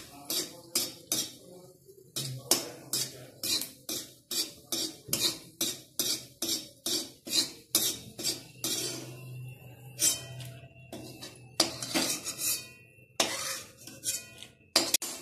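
A spoon scraping and clinking against a metal kadhai in quick repeated strokes, about two a second with a couple of short pauses, as pieces of dried turmeric root are stirred and fried in oil.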